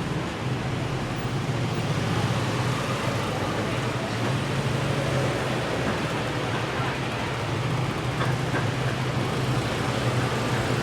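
Steady city traffic noise with a constant low hum.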